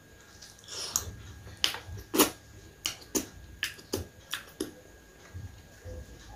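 A person eating close to the microphone: chewing with a quick, irregular run of sharp wet mouth clicks and smacks, about ten of them in under four seconds, then softer chewing.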